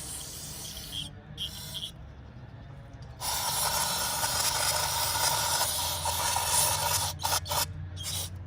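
Spray of rinse water hissing through a Prius EGR cooler's passages, flushing out loosened carbon deposits: short bursts at first, then a long spray from about three seconds in to about seven, then a few short bursts. A steady low hum runs underneath.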